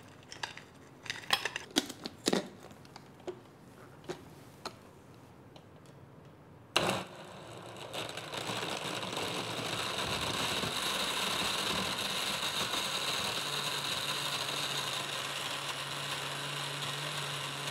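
A few light clinks and knocks, then about seven seconds in a Moulinex Faciclic glass blender starts and runs steadily, crushing ice cubes with strawberries, banana and milk. In the last few seconds a steady hum comes in as the mix turns smooth.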